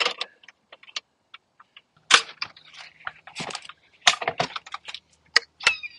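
Sharp, irregular clicks and clacks from a Thule folding kayak carrier's metal and plastic parts as it is unlatched and swung upright on a roof rack.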